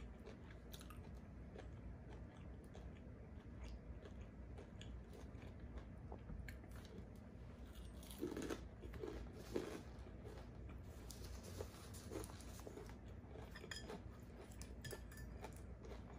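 Quiet chewing and mouth sounds of someone eating fried fish, with a crunchy bite into the breaded crust about eight seconds in.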